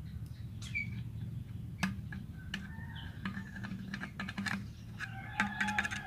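Plastic spoon tapping and clicking against the neck of a plastic sprayer bottle as powder is knocked in: light, irregular clicks, coming in quick runs in the second half.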